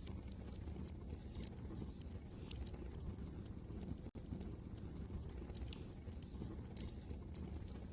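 Wood fire crackling in a fireplace, with frequent sharp irregular pops and snaps over a low steady rumble of wind. The sound cuts out for a split second about four seconds in.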